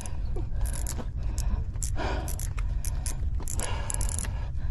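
Wind rumbling on the microphone, with scattered light clicks and rustles from handling a fishing rod and spinning reel.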